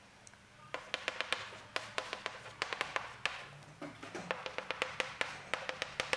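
Chalk clicking on a blackboard while writing, an irregular run of quick, sharp ticks.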